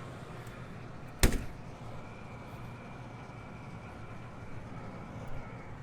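Steady running noise of a rooftop HVAC unit, with a faint steady whine coming in about two seconds in, and one sharp knock about a second in.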